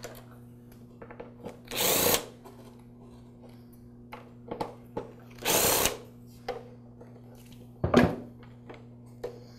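Cordless electric screwdriver running in two short bursts of about half a second each, backing out the screws that hold the tap to a DeLonghi super-automatic espresso maker's housing. Near the end comes a single sharp click as the plastic tap is pulled free, with small handling ticks between.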